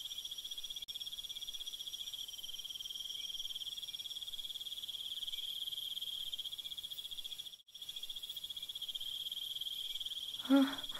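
Crickets trilling steadily, a continuous high pulsing chirr, which drops out for an instant about two-thirds of the way through.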